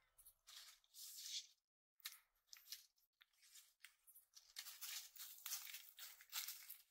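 Faint, crisp rustling and tearing of green leafy stalks being handled, in irregular bursts.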